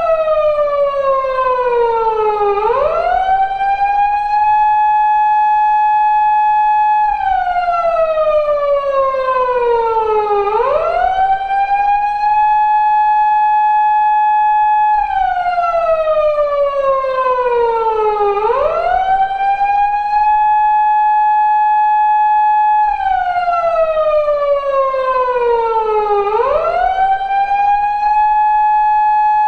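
Japanese police car siren, the tone used on 170- and 180-series Toyota Crown patrol cars, sounding in an 8-second cycle. In each cycle the tone is held steady for a few seconds, falls slowly for about three seconds, then swoops quickly back up. The cycle repeats about four times.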